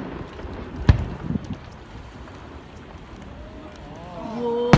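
A firework explodes with a single sharp bang about a second in, over a steady low rumble. Near the end a voice sounds and another sharp bang follows.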